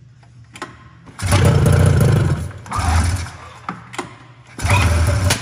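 Snowmobile two-stroke engine being pull-started with its recoil starter three times: each pull brings a second or so of engine noise, and it does not keep running.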